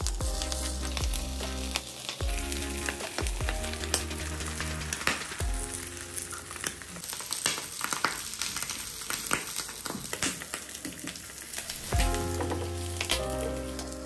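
Eggs frying in hot oil in a nonstick pan, a steady sizzle full of small crackles, with a nylon spatula scraping and tapping against the pan.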